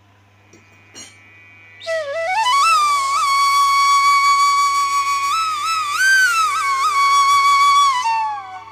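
Background music: a solo flute starts about two seconds in, slides up into a long held note with a few ornamental bends, then falls away near the end.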